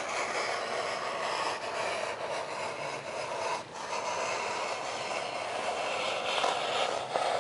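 A blade being drawn through foam board, a continuous scratchy scraping that finishes a missed cut, with a brief break about three and a half seconds in.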